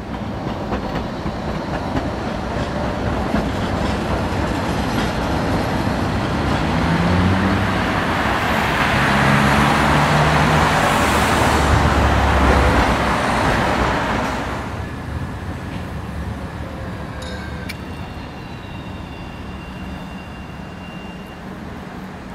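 Electric tram passing close by on street track: its rolling and motor noise builds to a peak about ten seconds in, then fades as it moves away.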